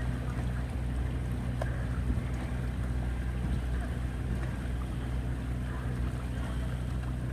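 Outboard motor of a coaching launch running at a steady speed, a low even hum.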